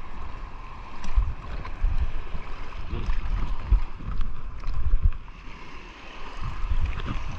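Water sloshing and splashing at the surface, heard through a submerged camera, with irregular muffled low thumps as the swimmer moves against a float.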